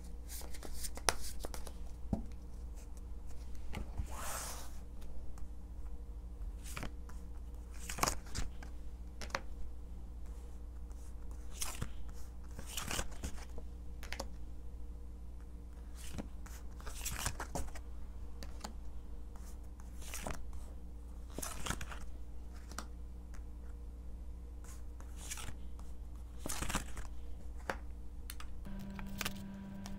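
Tarot cards being handled and dealt face-down onto a cloth-covered table: irregular soft snaps, flicks and slides of the cards, over a steady low hum.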